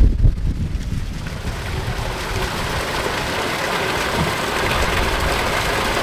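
Fountain water pouring from a spout into a stone basin: a steady splashing hiss over a low rumble.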